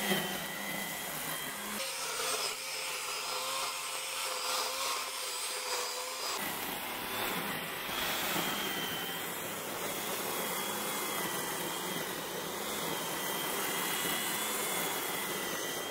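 Corded electric string trimmer running with a steady high whine as its spinning line cuts through tall grass.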